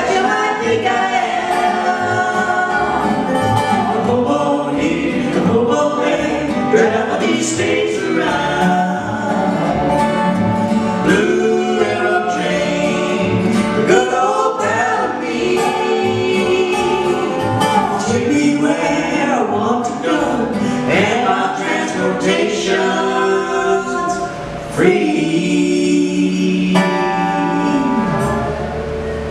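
Live acoustic country duet: a woman and a man singing together over strummed acoustic guitar, a lap-played resonator guitar (dobro) and upright bass. The sound thins and gets quieter near the end.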